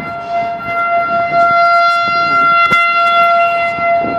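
Outdoor tornado warning siren sounding a steady single-pitch tone during its monthly test, getting louder about a second in. Low rumbling noise runs underneath, with one sharp click near the middle.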